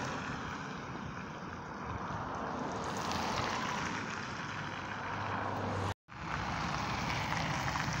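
Cars passing on a winter road: a steady rush of engine and tyre noise with a low hum, broken by a brief dropout about six seconds in.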